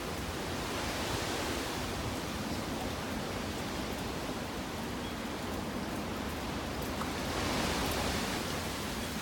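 Typhoon wind blowing hard as a steady rushing noise, with low rumbling buffets on the microphone; it swells slightly late on.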